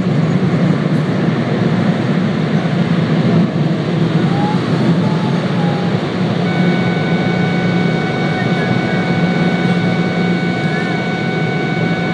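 Steady loud rush of air with a low hum, heard from inside a vehicle at a car wash. About six seconds in, a thin steady whine with several pitches joins it.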